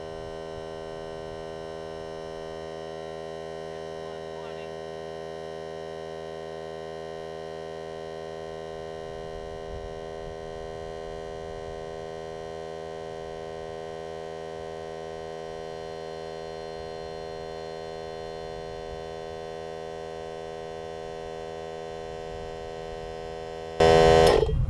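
Ryobi cordless 1-gallon air compressor running steadily with an even, humming drone. Near the end a louder, rougher burst of sound comes in suddenly.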